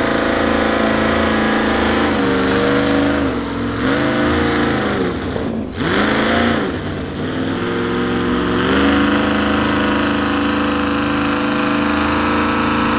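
Mini modified pulling tractor's engine running at a steady high rev. The revs drop and pick back up a couple of times, with a deep dip about six seconds in, then hold high again before falling away near the end.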